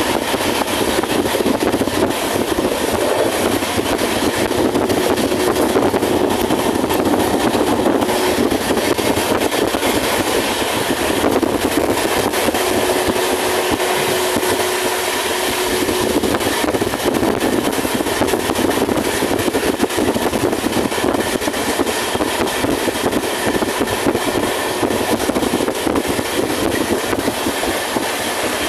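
Kulik Express passenger train running at speed, heard from its open door: a loud, steady rush of wind and wheels rolling on the rails. A faint steady whine comes and goes twice partway through.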